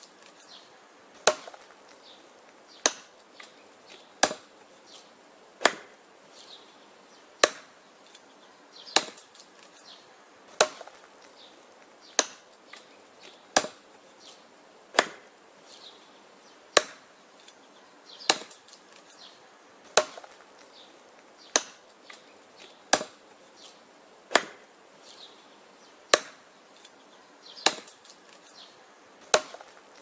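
Bellota hatchet chopping into a round branch laid across a stump: a sharp wooden chop about every second and a half, with fainter small ticks between the strikes.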